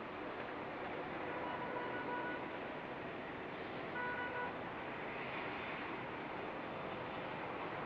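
Steady noise of an Airbus A319's jet engines at takeoff power, heard from a distance over traffic noise. Two short high beeps sound about one and a half seconds in and again about four seconds in.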